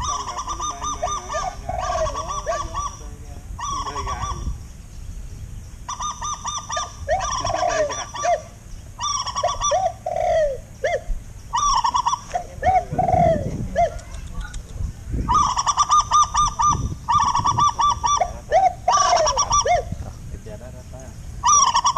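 Birds calling in repeated loud bursts of rapid, honking notes, with lower falling notes in between, the loudest bursts in the second half.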